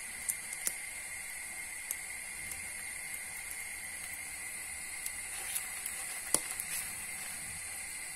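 Crepe batter frying in hot oil in a non-stick pan: a steady sizzling hiss with scattered small pops and clicks, the sharpest about six seconds in.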